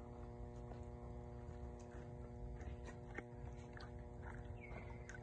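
Small splashes and drips of water as a young monkey moves in a duckweed-covered pool, heard as scattered soft clicks over a faint steady hum. A short falling animal call comes near the end.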